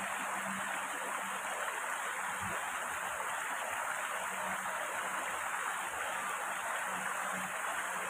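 Shallow rocky stream flowing over boulders and small cascades, a steady, even rush of water.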